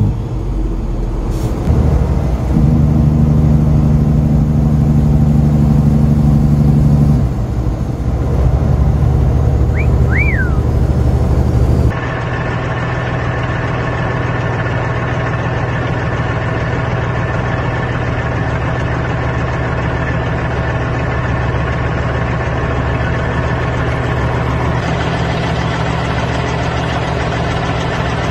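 Diesel engine of a semi truck pulling a loaded dump trailer, heard from the cab, its note stepping up about two seconds in and dropping about seven seconds in, with two short squeaks near ten seconds. About twelve seconds in the sound cuts to the same truck's diesel running slowly and steadily as it backs the trailer into the building.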